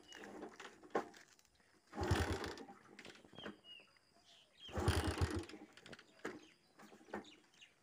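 Faint bird chirps, a few short falling notes, with two short low rattling bursts about two seconds and five seconds in.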